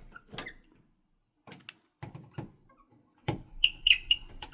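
Screwdriver tightening the screws of a Decora switch wall plate: scattered clicks and scrapes of metal on plastic, busiest near the end, with a few short high squeaks.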